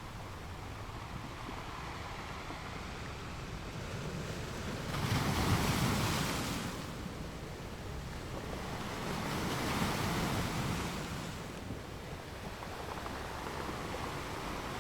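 Sea waves washing, rising into two louder surges, the first about five seconds in and the second about four seconds later.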